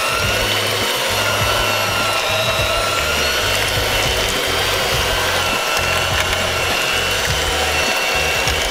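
Electric hand mixer running with a steady motor whine that wavers slightly in pitch, its beaters shredding slow-cooked chicken in a crock pot.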